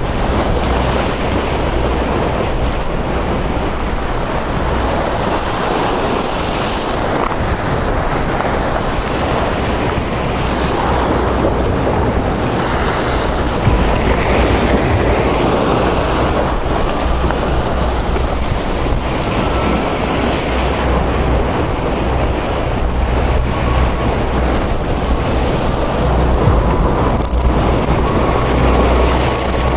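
Wind buffeting the microphone over the steady rush of waves surging against the jetty rocks, loud and unbroken.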